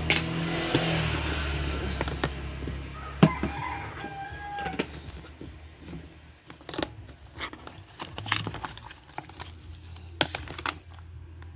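Short clicks and scrapes of a utensil against a bowl as raw chicken is mixed into its marinade, over a steady low hum. A rooster crows in the background about four seconds in.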